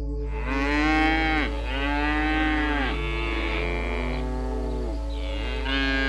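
An animal calling four times over soft ambient music: drawn-out calls, each rising then falling in pitch, the first the loudest and the third the faintest.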